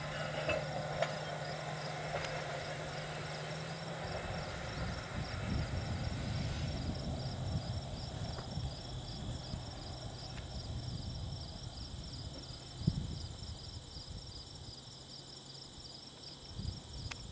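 Crickets chirping in a steady, regular pulse, with a continuous higher insect trill and an uneven low rumble underneath.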